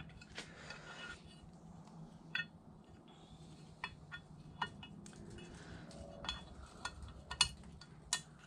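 Scattered light clicks and metal clinks as a Yamaha YFZ450R stator and its wiring are handled and pressed into the aluminium flywheel cover, over a low steady hum.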